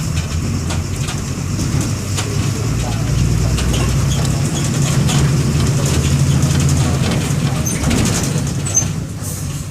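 MWM 6.12 TCE turbodiesel inline-six of a Volksbus 17-230 EOD city bus running under way. Its low engine note grows louder from about three seconds in, as if pulling under load, then eases off shortly before the end.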